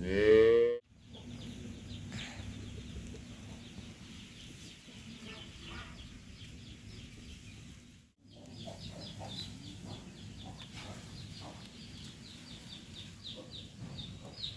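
Farmyard poultry: a loud pitched call in the first second, then many quick high chirps over a steady low background, which cut off abruptly twice.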